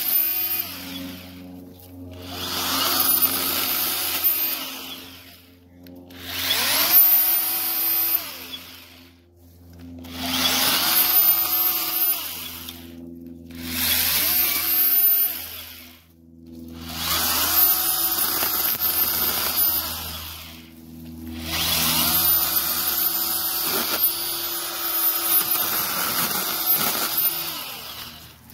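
Ryobi 18-volt brushless battery pruning chainsaw with a 6-inch bar, run in about six bursts of two to five seconds while cutting back rose bush canes. Each burst whines up to speed and winds back down between cuts.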